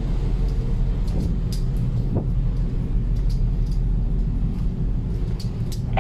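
Steady low rumble of a large container ship under way at sea, the running ship and the ocean heard from the open main deck, with a few faint scattered ticks over it.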